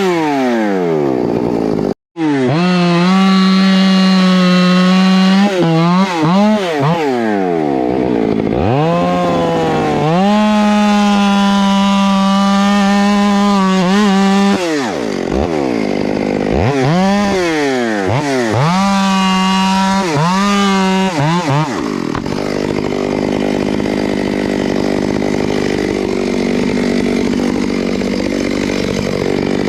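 Two-stroke chainsaw cutting wood. The engine pitch falls repeatedly as the chain bogs into the cut and climbs again as it revs free. About two thirds of the way through, the rising and falling engine note gives way to a steadier, rougher noise, and there is a momentary cut-out a couple of seconds in.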